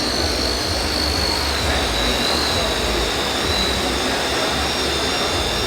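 Steady high-pitched whine of an RC construction model's small electric motor, drifting slightly lower in pitch, over a constant low rumble.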